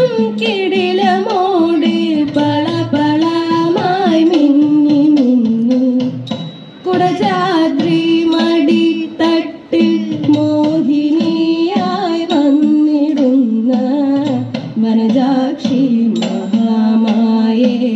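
Malayalam Thiruvathira song: a solo voice singing a melodic line over instrumental accompaniment, with a brief break about six seconds in.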